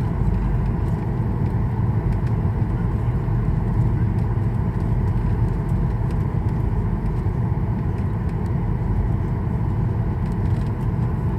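Steady in-flight cabin noise of a Boeing 737-800 heard from inside the cabin: a low, even rumble of its CFM56-7B jet engines and the air rushing past the fuselage.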